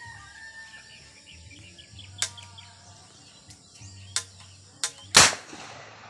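A single loud bang about five seconds in from a boga, the improvised cannon fired to scare sparrows off ripening rice, with a few sharp clicks in the seconds before it.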